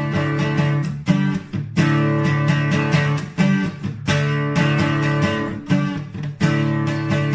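Guitar-driven instrumental music, with strummed guitar chords striking every half second to second.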